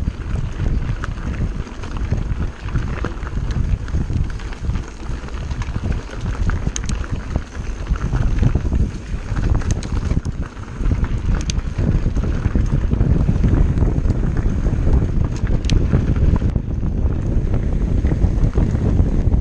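Wind buffeting the camera microphone over the rumble of an Orbea Laufey hardtail mountain bike rolling fast over a rocky dirt trail, with a few sharp clicks and rattles from the bike and stones. The rumble grows louder a little past halfway.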